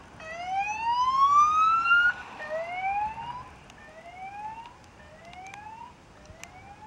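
Police car siren sounding a repeated rising whoop, each sweep climbing in pitch and then cutting off before the next starts. It is loud as the car passes close, about a second or two in, and fades as the car drives away.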